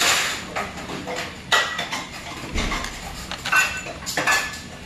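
Metal spoon and utensils clinking against an earthenware soup pot and dishes: several sharp clinks, a few with a short metallic ring.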